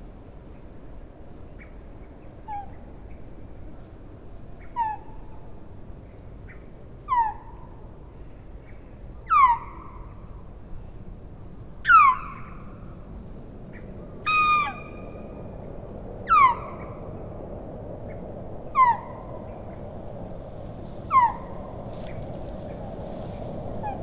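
Osprey calling: a series of short, sharp whistles, each falling in pitch, about one every two seconds, growing louder toward the middle and then weaker. One call about halfway through is held on a steadier note. A faint steady rushing noise lies underneath and grows near the end.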